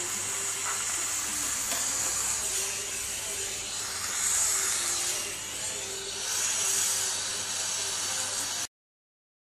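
Small gas torch hissing steadily as its flame is played on a lead terminal post of a battery during lead burning, swelling a little twice before the sound cuts off abruptly near the end.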